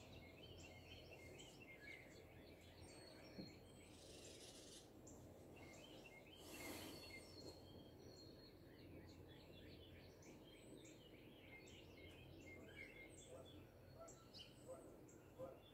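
Faint chorus of songbirds, many short chirps and calls overlapping throughout, over a low steady hum. A brief rush of noise passes about six to seven seconds in.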